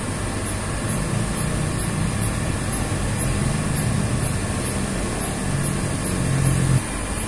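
Steady mechanical hum over a constant background rush, with one brief louder bump near the end.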